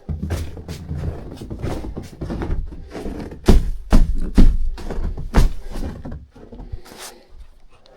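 Irregular thuds and knocks with rustling in a small room, as gear is handled and set down. The heaviest thuds come in the middle.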